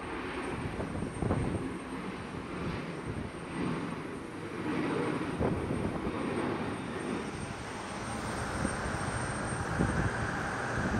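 Jet airliner taking off: a steady rush of jet-engine noise with a low rumble underneath.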